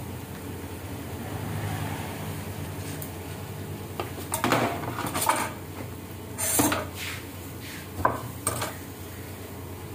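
A steel cleaver and metal tongs knocking and clinking on a wooden chopping board as grilled chicken is cut and served, with about six sharp strikes in the second half, over a steady low hum.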